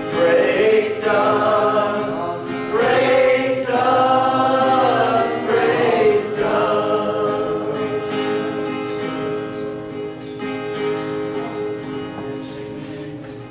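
A gospel song, a man singing into a microphone with guitar accompaniment. The singing stops about seven seconds in and the last chord rings on, fading away.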